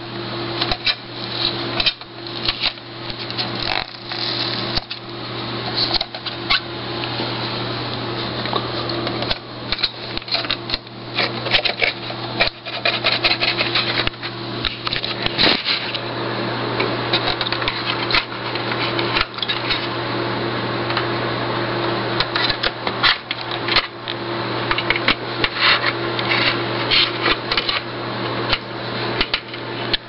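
Irregular clicks, knocks and rattles of a 17-inch LCD monitor's metal chassis and plastic housing being pried and worked apart by hand, over a steady low hum.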